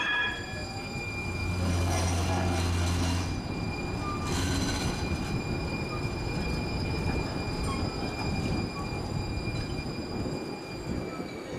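MUNI Metro streetcar running on its rails: a rumble of the moving car under several steady high-pitched tones, with a brief low hum swelling about two seconds in.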